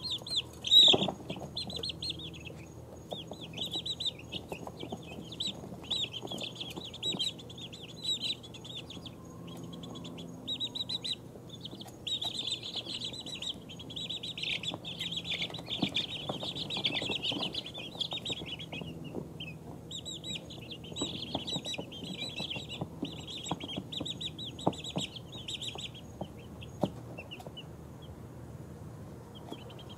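Two-week-old chicks peeping, high chirps coming in bursts with short lulls in between. A single sharp knock sounds about a second in, and a faint low hum runs underneath.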